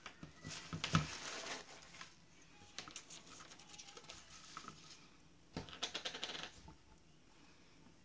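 Thin paper napkin rustling and crinkling as it is handled and folded on a tabletop, in two short spells, with light clicks and taps of craft tools being set down.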